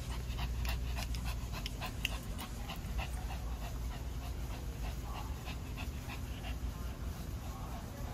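Shih Tzu panting rapidly, about four to five quick breaths a second, easing off about six seconds in, over a steady low hum.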